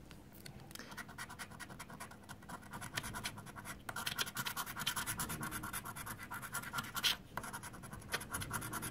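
A coin scratching the silver latex coating off a scratch card in rapid, repeated strokes, with brief pauses about four and seven seconds in.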